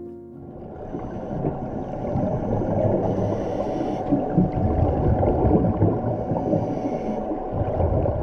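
Underwater ambience sound effect: water bubbling and gurgling with a low rumble, swelling in during the first second, with a faint steady tone underneath.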